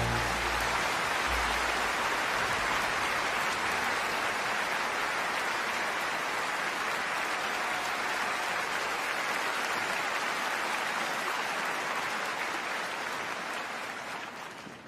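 Concert audience applauding steadily as the last sustained note of the music dies away in about the first second; the applause fades out near the end.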